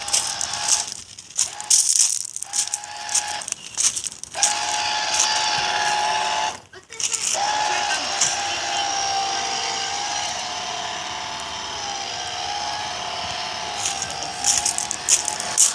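Small electric motor of a remote control boat whining at a steady pitch, cutting out briefly several times in the first seven seconds, with a clatter of sharp clicks over it.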